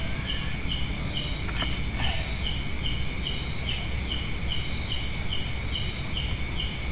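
Night insects: crickets chirping in an even rhythm, about two to three chirps a second, over a continuous high-pitched insect drone, with a steady low rumble underneath.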